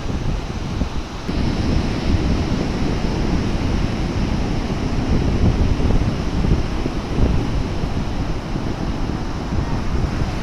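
Sea waves washing and surging in a continuous rush, with wind buffeting the microphone. About a second in, the hiss turns a little brighter.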